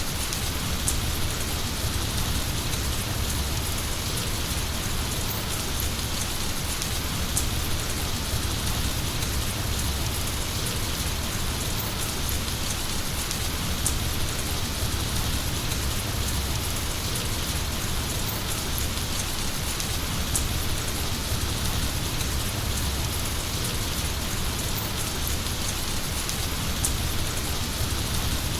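Heavy rain falling steadily, a dense even hiss of rain on surfaces with a low rumble underneath and no letup.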